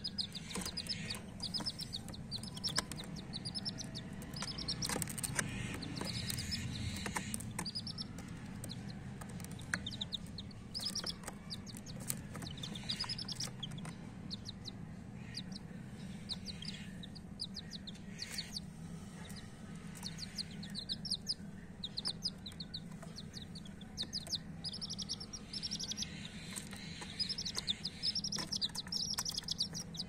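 Domestic chicken chicks peeping: runs of short, high-pitched chirps in quick succession, over a steady low hum and a few sharp clicks.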